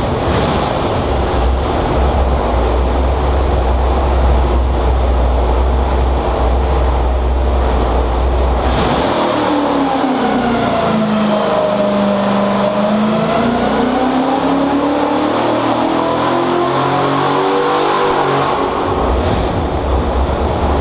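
Butler-built Pontiac V8 running on an engine dyno, loud and steady at first. From about nine seconds in, its pitch dips and then climbs back as the engine speed changes.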